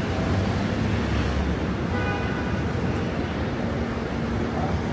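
Busy city street ambience: a steady roar of traffic.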